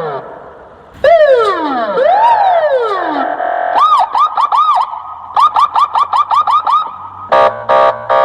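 Electronic toy-style sound effects: falling whistle glides in the first few seconds, then a quick warbling run of rising-and-falling chirps, about three a second, and near the end three short buzzy beeps.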